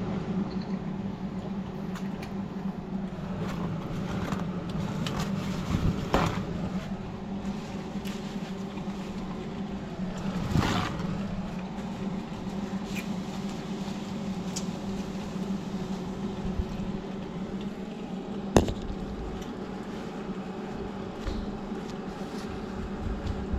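A steady, low machine-like hum, with three sharp knocks or clinks: about a quarter of the way in, near the middle, and a louder one about three-quarters through.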